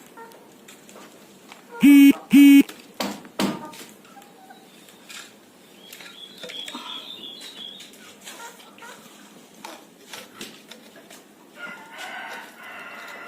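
Chickens clucking and calling. About two seconds in come two loud, short sounds of even pitch, close together, then a couple of knocks, with light taps scattered through the rest and a higher chirping a little later.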